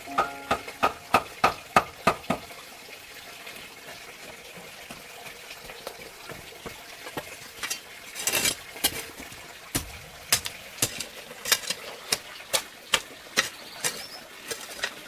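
A series of sharp knocks and clicks, about three a second at first, then scattered and irregular, over a faint wet-sounding hiss.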